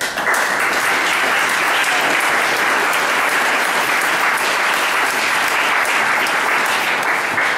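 Audience applauding: steady clapping that starts suddenly and holds at an even level throughout.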